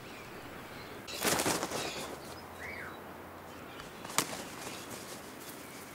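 Flapping wing beats of an Egyptian vulture, a short rush of several quick flaps about a second in, followed by a single sharp knock a few seconds later. Small birds chirp faintly in the background.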